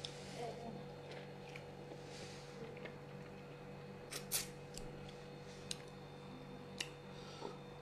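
Quiet room with a steady low hum and a few faint, sharp clicks and taps, the loudest a quick pair about halfway through.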